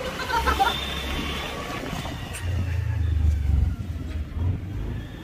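Riding on a motorbike through town traffic: the bike's engine and road noise make a steady low rumble, which swells louder for about a second a little past halfway.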